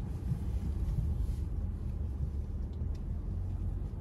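Steady low rumble of a car ferry under way, with a constant deep drone and noise but no distinct events.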